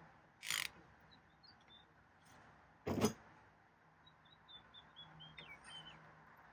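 Rivet Beast tooth-press being undone from a saw: a brief scrape about half a second in and one sharp metal clank about three seconds in as its hook is loosened, with faint high chirps in the background.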